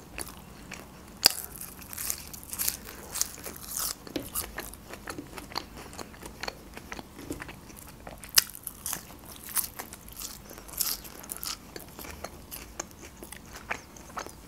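Eating sounds: crisp bites and chewing of raw green onion, a scatter of short crunches throughout, the sharpest about a second in and again about eight seconds in.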